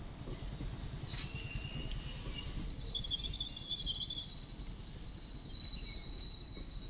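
Passenger train coaches rolling past with a steady low rumble. About a second in, a high, steady wheel squeal starts suddenly; it sinks slightly in pitch and fades near the end.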